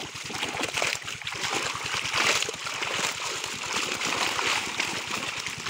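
A dense mass of netted fish thrashing and splashing in shallow water, a continuous crackling splatter, with water sloshing as a basket is dipped among them.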